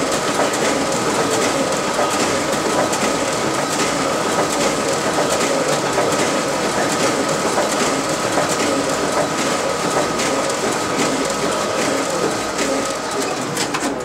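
A RISO 9050 high-speed inkjet printer running a long duplex print job, with paper feeding and moving through the finisher in a steady mechanical clatter and a steady whine over it. Near the end the whine stops and the clatter dies down.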